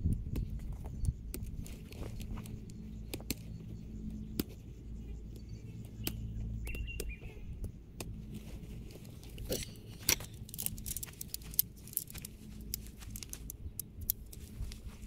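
Swag tent poles being handled and fitted during setup: scattered light clicks and clinks, thickest about two thirds of the way through, with rustling of the canvas.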